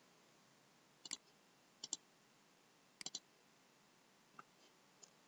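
Computer mouse button clicks: three sharp paired clicks about a second apart, then two fainter single clicks near the end.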